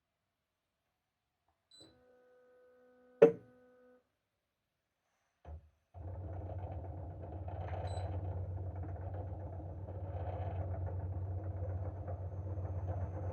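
CHOFU AE-2844PX air-conditioner outdoor unit starting up in cooling mode: a faint tone with one sharp click about three seconds in, a short low thud, then from about six seconds its GMCC single-rotary inverter compressor runs with a steady low hum.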